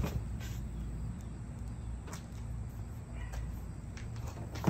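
Cardboard model box being lifted off its foam packaging: a sharp scrape or knock as it comes free, a few light knocks while it is carried off, and another sharp knock at the end, over a steady low hum.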